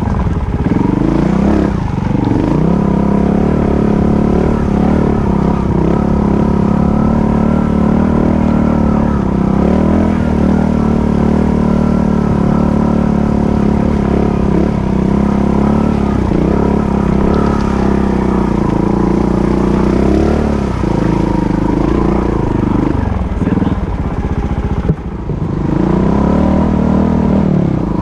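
Off-road motorcycle engine running hard under changing throttle on a rough dirt trail, its pitch rising and falling as it revs. The throttle is cut briefly near the end before the engine pulls again.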